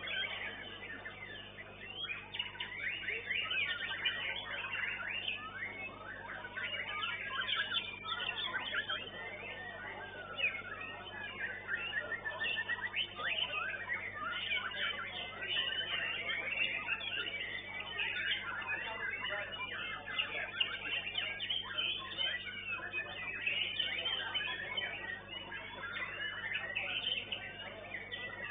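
White-rumped shamas (murai batu) singing in a contest, several birds at once: a dense, unbroken stream of overlapping whistled phrases.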